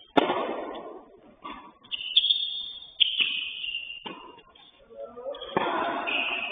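A tennis rally: sharp ball strikes every one to three seconds, each ringing on briefly, with high squeaks from tennis shoes sliding on a hard court in between.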